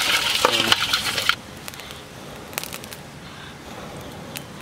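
Loud rustling handling noise with a brief voice for about the first second, then an abrupt change to a small wood fire crackling quietly with a few sharp pops.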